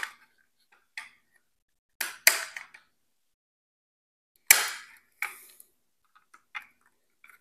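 Big flathead screwdriver prying at the stubborn plastic clips holding the chrome front onto a stock Chevrolet Camaro bowtie emblem: a series of sharp plastic clicks and short scrapes, the loudest about four and a half seconds in.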